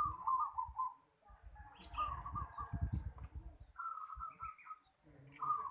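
Zebra doves (perkutut) cooing. Several short phrases of quick staccato notes follow one another about a second apart, and a low rumble sits under some of them.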